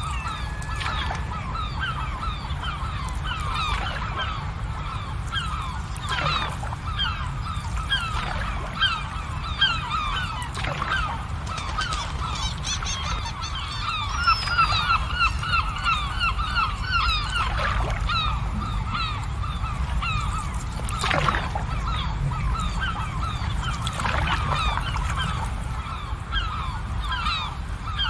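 A flock of birds calling, many short honking calls overlapping without pause, over a steady low rumble.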